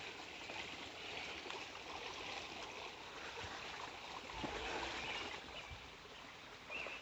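Shallow rocky creek flowing: a steady, faint rush of water over stones, with a few soft low thumps about four and a half seconds in.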